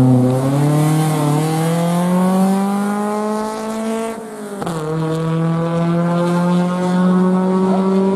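Rally car engine accelerating, its pitch rising steadily for about four seconds, dropping sharply at an upshift, then climbing again in the next gear.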